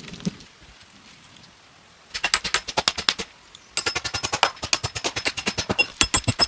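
Rapid sharp knocks, about ten a second, in two runs: one of about a second and a half starting two seconds in, and a longer one after a brief pause.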